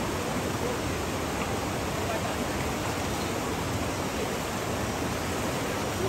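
Shallow river water rushing over rocks: a steady, even rush.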